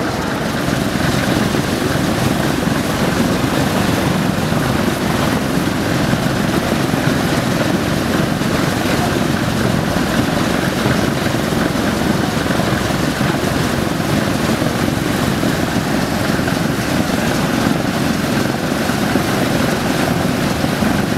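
Both engines of a twin-engine propeller aircraft running steadily at low power as it taxis.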